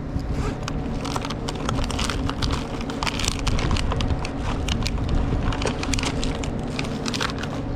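Tools clinking and rattling as hands rummage through a tool bag, many small clicks throughout, over a steady low machinery hum.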